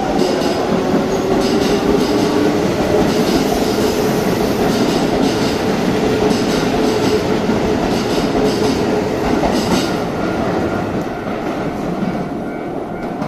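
Keisei 3700-series electric commuter train pulling out past the platform, gathering speed, with a regular clatter of its wheels over the rail joints and a steady whine. It fades near the end as the last car clears the platform.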